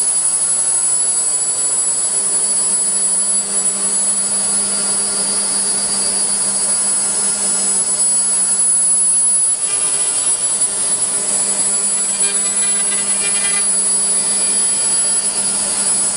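A CNC wood router's 9 kW HSD spindle cutting through a wood panel: a steady high whine over the noise of the bit in the wood, with a constant low hum. The tone shifts a little about ten seconds in.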